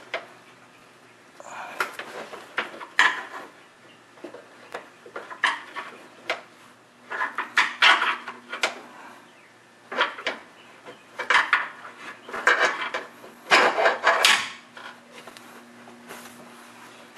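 Hose clamp pliers and a spring hose clamp clinking and scraping as the lower radiator hose is worked off the radiator outlet: a string of irregular short metallic clicks and rubbing scrapes.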